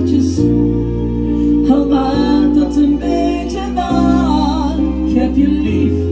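Live pop song played through a PA: sustained keyboard chords and bass notes, with a singing voice drawing out a wavering melody in the middle.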